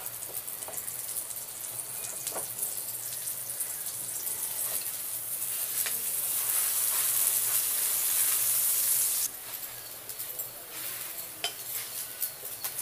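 Butter sizzling under a batter-coated stuffed bread square frying on low heat on an iron tawa (griddle pan), with a few short taps of a wooden spatula on the pan. The sizzle grows louder until about nine seconds in, then drops suddenly to a lower hiss.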